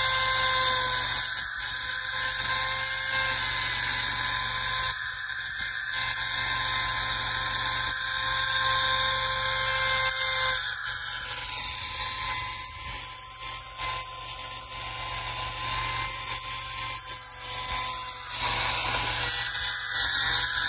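Makita cordless electric chainsaw running with a steady high whine. Its pitch drops about halfway through as the chain cuts into a log, and rises again near the end.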